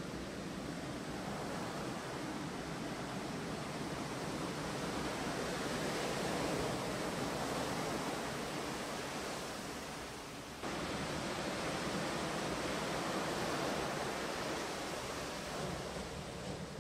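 Heavy surf: large waves breaking and foam rushing up the beach in a continuous roar that swells and eases. There is an abrupt jump in loudness about two-thirds of the way through.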